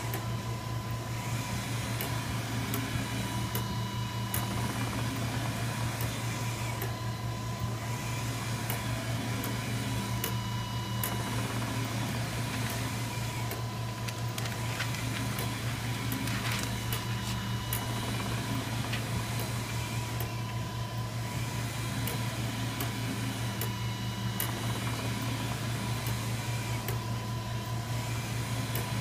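Océ 480 GT UV flatbed printer running: a steady mechanical hum with a thin whine, swelling and dipping about every three seconds as the print carriage sweeps across the bed, with scattered light clicks.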